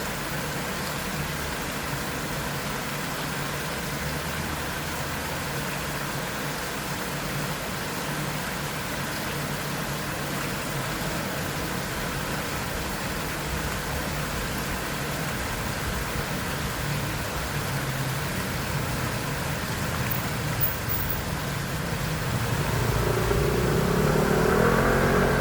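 Steady rushing of a small waterfall, with a faint engine hum under it. Near the end a motorcycle passes, its engine rising in pitch and growing louder than the water.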